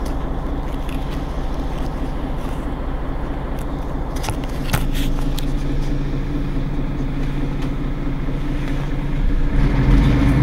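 Mercedes-Benz Citaro G C2 articulated bus's diesel engine running steadily, growing louder near the end as it takes up load.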